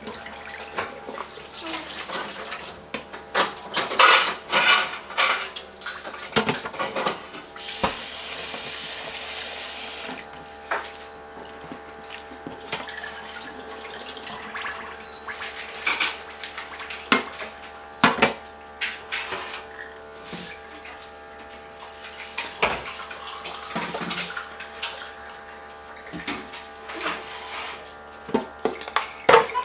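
Kitchen sink work: a tap running for a couple of seconds about a quarter of the way in, with pots, bowls and utensils knocking and clinking throughout.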